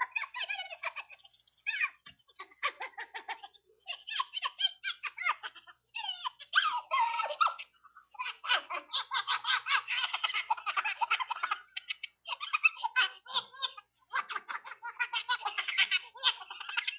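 Giggling and laughter in quick, high-pitched bursts, on and off, with short pauses between.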